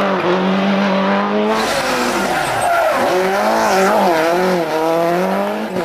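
Subaru Impreza WRC rally car's turbocharged flat-four engine revving hard. The revs drop and climb again and again through gear changes and lifts. The sound changes abruptly about a second and a half in.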